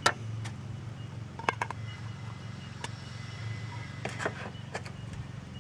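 A wooden spoon knocks once against a small metal cooking pot, followed by a few faint scattered clicks. A steady low hum runs underneath throughout.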